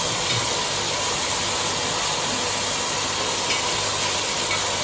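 Steady sizzling hiss of chicken gizzards cooking in a pot of burnt sugar.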